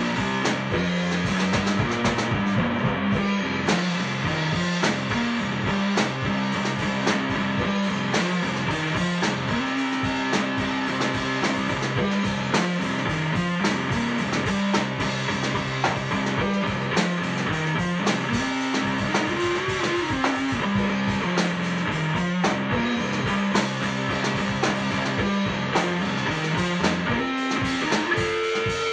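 Rock music with guitar and drums, playing at a steady level throughout.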